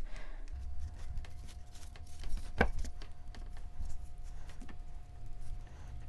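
Soft handling sounds of fingers pressing and smoothing a coil of air-dry clay onto a clay form, with scattered small clicks and one sharper click about two and a half seconds in. A faint thin steady tone sits underneath from about half a second in.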